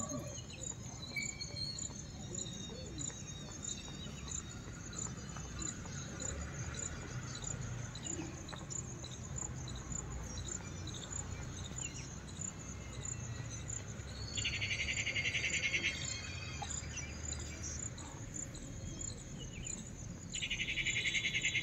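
Insects chirping outdoors: a high, evenly spaced chirp repeating steadily, with a loud rapid buzzing trill about fourteen seconds in and again near the end, over a low background rumble.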